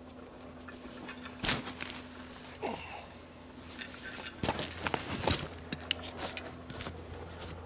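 Irregular footsteps and rustling on the trail: a few separate crunches and knocks, loudest about a second and a half in and again around five seconds, over a low steady hum.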